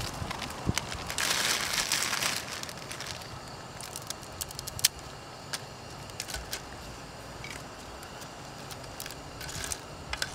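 Plastic instant-noodle packet crinkling and dry noodle blocks crackling as they are broken by hand into a pot, loudest a second or two in. After that come scattered light clicks and taps of noodles and a spoon against the metal pot.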